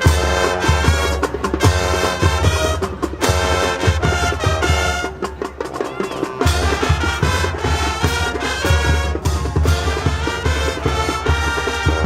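Marching band brass and percussion playing Spanish-flavoured show music, coming in suddenly and loud at the start.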